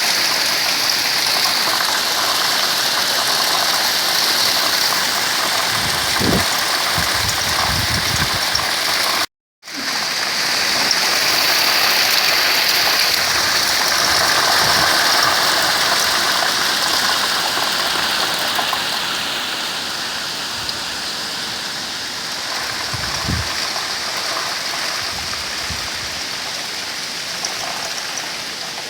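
Heavy hail shower: hailstones pelting down in a loud, dense, continuous clatter. It breaks off for an instant about a third of the way in, has a few brief low thumps, and eases slightly in the second half.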